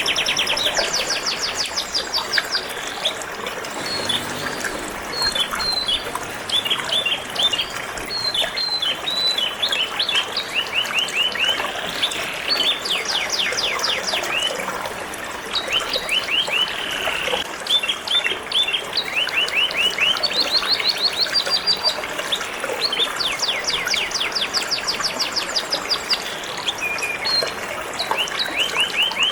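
Domestic canary singing in long runs of rapid trills and chirps over a steady trickle of running water.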